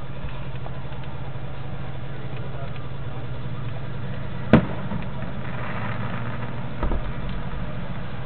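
A firework bursts with one sharp, loud bang about halfway through, followed by faint crackling and a softer low thump a couple of seconds later, over a steady low hum.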